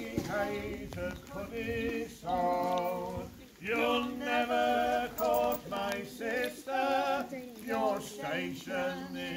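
A group of mixed male and female voices singing unaccompanied, holding long notes with vibrato in phrases of a second or two.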